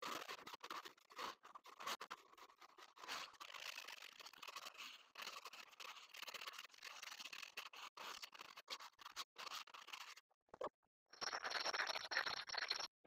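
A hand scraper scratching and scraping lumps off a textured microcement coating on a concrete slab, with many small clicks. After a short pause near the end, a sanding pad rubs the surface by hand.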